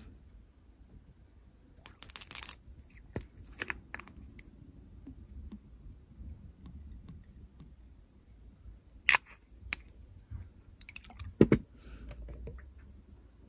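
Small handling sounds of glass paint bottles: a cluster of sharp clicks as a cap is worked loose, scattered light clicks as the bottle is tipped over a small metal dish, and a louder dull knock about two seconds before the end as a bottle is set down.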